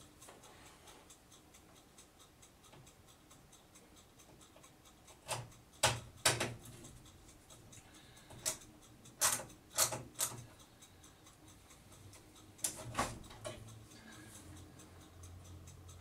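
A screwdriver working a motherboard screw inside a PC case: about a dozen sharp clicks and taps in uneven clusters, starting about five seconds in.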